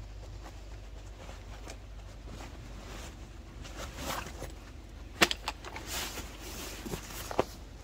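Nylon stuff sack and webbing straps rustling as gear is pulled out from under a backpack's straps, with a few sharp clicks of buckles and strap hardware, the loudest about five seconds in and another near the end.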